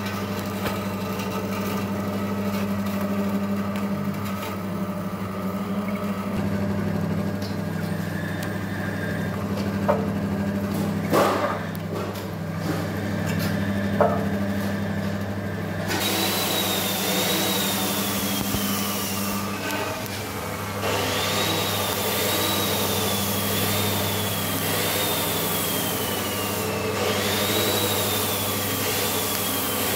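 Electric-motor-driven screw press for ginger juice running steadily with a low motor hum, with a few knocks a little past a third of the way in. From about halfway a louder hiss joins, with a high whine that slides slowly down and jumps back up several times.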